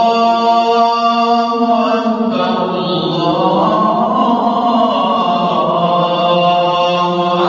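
Islamic devotional chant: voices sing long, drawn-out notes, with a change of note about two seconds in.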